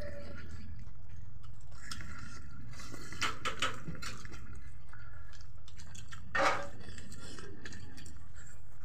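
Eating by hand from ceramic plates: fingers mixing rice and curry on the plates, and chewing, as scattered small clicks and scrapes, the sharpest about six and a half seconds in. A steady low hum runs underneath.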